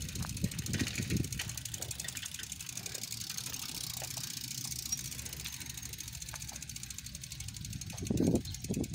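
Bicycle rear freewheel hub ticking quickly and evenly as the bike is walked along, the wheel turning without pedalling. A low rumble on the microphone comes about a second in and again, louder, near the end.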